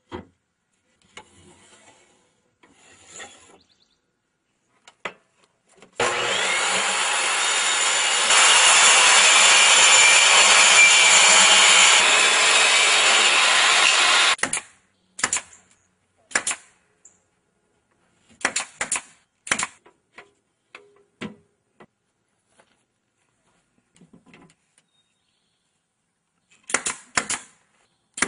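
Table saw cutting a wooden board for about eight seconds, getting louder partway through and then cutting off. Around it, scattered knocks and clatters of boards being handled, and near the end a quick run of sharp clicks from a power tool.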